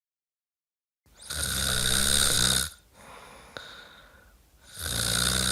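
A person snoring: two loud snores with a low flutter, starting about a second in and about three and a half seconds apart, with a quieter breath between them.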